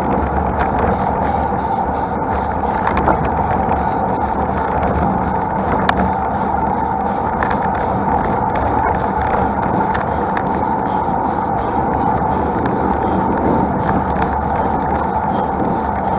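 Steady rush of road and wind noise from a road bike being ridden, with scattered small clicks and rattles, one sharper click about six seconds in.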